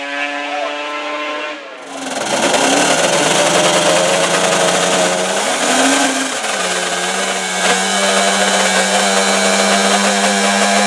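Drag-racing ATV engines running at high revs, getting suddenly much louder about two seconds in, with the pitch rising and falling briefly midway.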